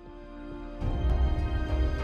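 Cinematic intro music: sustained held chords that swell just under a second in, when a deep low bass comes in and the music grows louder.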